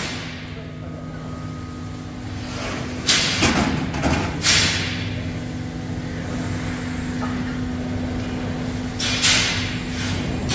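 Hydraulic pump of a Bystronic Xpert 320 CNC press brake humming steadily. Sudden clatters of a large steel chequer plate sheet scraping and knocking against the machine as it is slid into place: twice a few seconds in, and again near the end.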